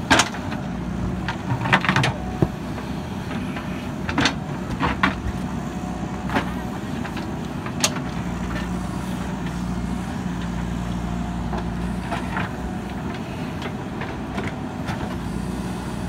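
JCB 3DX backhoe loader's diesel engine running steadily as the backhoe digs. A handful of short, sharp clacks and knocks come from the bucket and arm working in the dirt.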